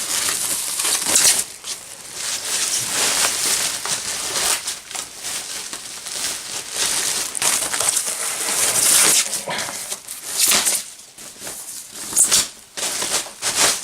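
Plastic strapping and packaging being pulled and crinkled on a box, in irregular rustling, crackling bursts with sharp clicks.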